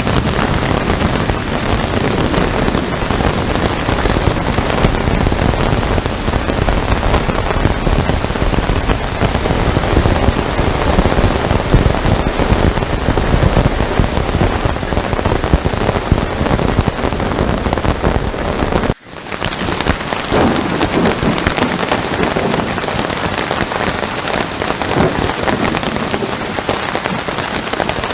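Heavy rain pouring steadily with a deep low rumble beneath it. About 19 seconds in the sound cuts out for an instant, then resumes as rain with less low rumble.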